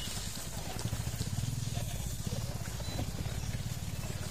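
Low, rapid throb of a small engine running, swelling about a second in and holding steady.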